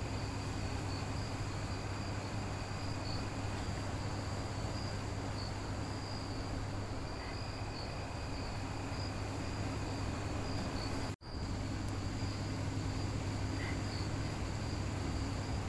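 Crickets chirping steadily in the night over a constant low hum, with the sound cutting out for an instant about eleven seconds in.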